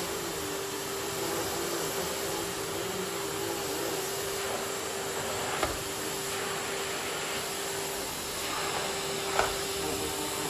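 Miele vacuum cleaner running steadily, a hiss of suction with a constant whine through it. Two brief knocks break in, about halfway through and near the end.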